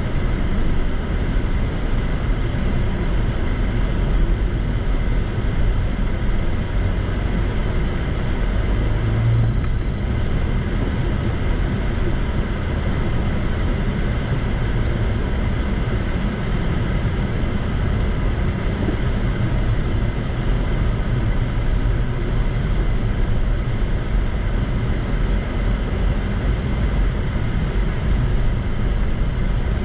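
Steady rumble of a car driving, heard from inside the cabin: engine and road noise running evenly with little change.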